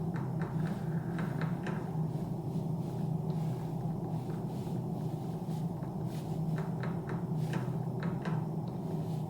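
Soft, irregular small taps and clicks from hands handling objects, over a steady low hum.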